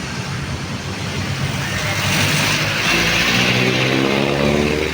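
A motor vehicle passing close by on the road, growing louder about halfway through as its engine speeds up with a rising pitch, over steady traffic noise.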